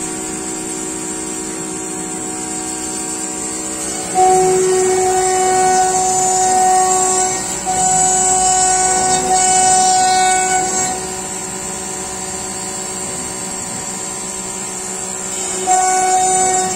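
CNC router spindle running with a steady high whine as its bit cuts through a wooden sheet. The sound gets louder about four seconds in for roughly seven seconds, eases off, and rises again near the end.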